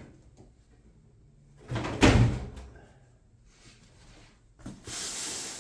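Large cardboard box being handled: a heavy thump about two seconds in, then a steady sliding, rustling scrape near the end.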